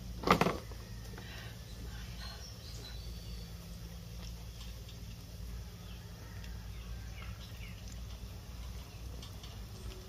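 A single sharp knock about half a second in, a cooking utensil striking the bowl, followed by a low steady rumble and faint bird chirps.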